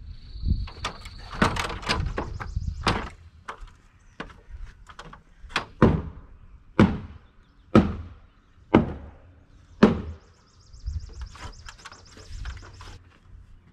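Heavy wooden knocks of a mallet striking timber-frame joints: a clatter of blows at the start, then five strong, evenly spaced strikes about a second apart, then lighter taps.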